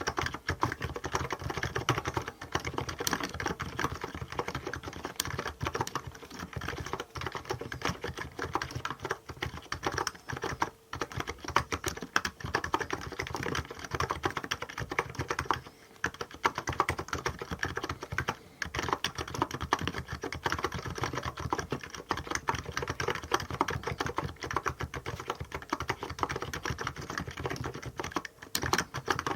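Continuous fast typing on a Hansung GK868B electrostatic capacitive keyboard with 50 g switches and SA-profile keycaps: a dense run of key clacks, with brief pauses about 11, 16 and 18 seconds in.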